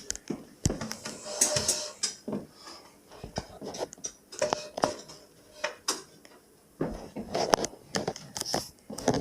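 Irregular metal clinks, knocks and scrapes from hands and tools working on a Kenmore dishwasher as it is uninstalled, busier in the last couple of seconds.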